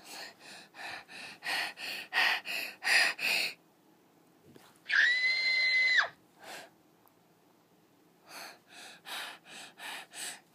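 A child panting in quick, heavy breaths close to the microphone, in two runs of short puffs. About five seconds in there is one high, steady tone lasting about a second.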